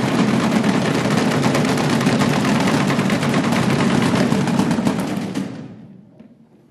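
Many people beating wooden boxes at once, a fast, dense clatter of strokes that dies away about six seconds in. It is the Good Friday drumming that stands in for church bells.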